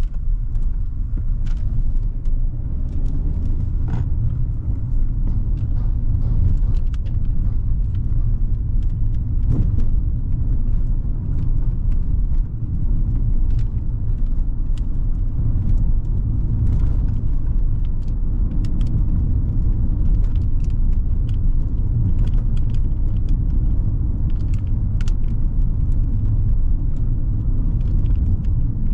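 Hyundai Creta's 1.5-litre four-cylinder petrol engine and its tyres on the road, a steady low rumble of the SUV being driven, with scattered light clicks and taps over it.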